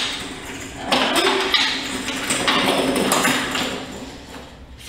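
Pilates reformer springs being changed down to one red spring: metal hooks and springs clinking and rattling against the frame in a run of taps and knocks. It is loudest from about a second in and fades near the end.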